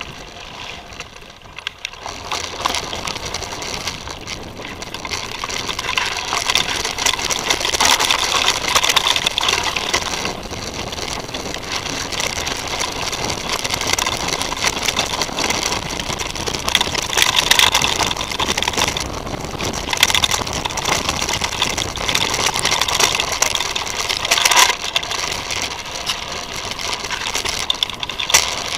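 Mountain bike (Titus FTM) riding over a grassy, then forest trail: steady tyre and trail noise that builds up about two seconds in, with occasional knocks and rattles over bumps.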